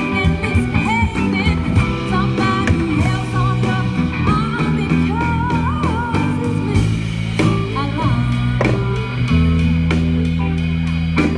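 Live band playing a song: electric guitar and drum kit, with a woman singing.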